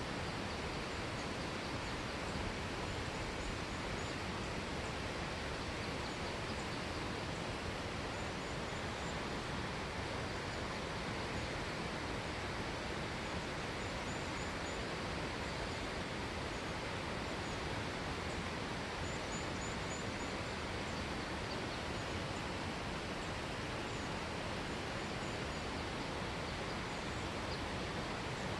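Steady outdoor rushing noise, even across all pitches, with faint high chirps of small birds here and there.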